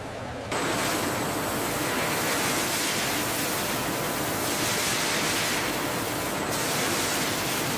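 Water jets spraying and splashing onto avocados in a brush washing machine, a steady rushing hiss that starts suddenly about half a second in.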